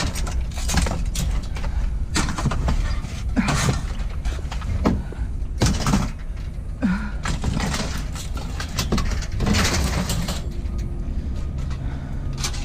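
Scrap metal and wire being handled and sorted: a run of irregular knocks, clinks and rustles over a steady low rumble.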